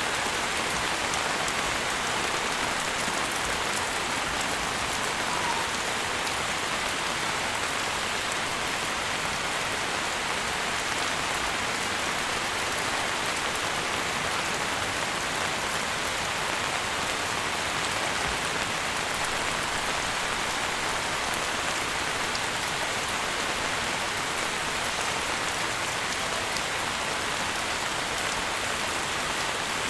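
Steady rain falling: an even hiss with fine, scattered drop ticks.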